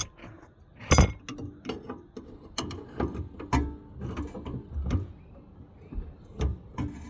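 Hand tools and metal parts clicking and knocking irregularly while working on an outer tie rod and its lock nut, with one sharper knock about a second in.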